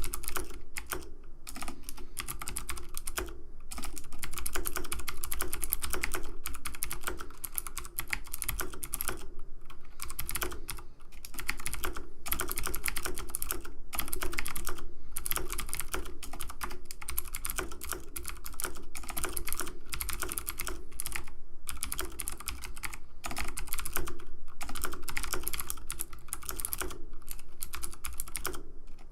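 Computer keyboard keys clicking rapidly and continuously in dense runs, with a few brief pauses.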